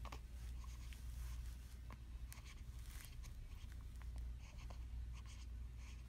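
Two-week-old newborn baby hiccupping: several short, sharp hiccups roughly a second apart.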